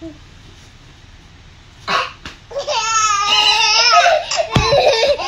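A baby laughing: after a quiet start, a short burst about two seconds in, then a long, high-pitched, wavering squeal of laughter, with a thump near the end.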